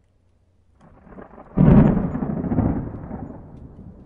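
Sound effect for an animated logo intro: a low rumble builds, breaks into a sudden deep boom about a second and a half in, and fades away over the next two seconds.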